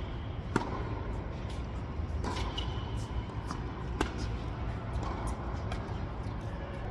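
Tennis rally on an indoor hard court: sharp racket-on-ball hits, the loudest about half a second in and another about four seconds in, over a steady low hum.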